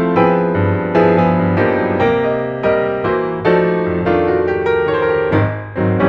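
Background piano music: a steady run of struck notes, each fading before the next one sounds.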